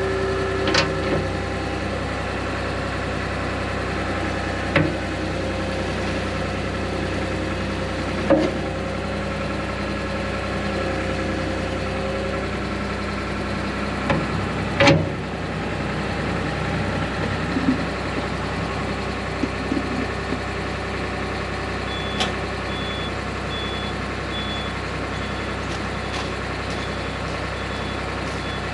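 Excavator engine running steadily at idle, with a few sharp metallic knocks. A high-pitched warning alarm beeps at a steady pace over the last six seconds or so.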